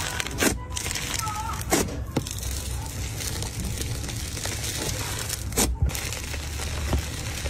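Fingers squishing and tearing fluffy cloud slime: a steady crackling, crinkling texture broken by several sharp pops.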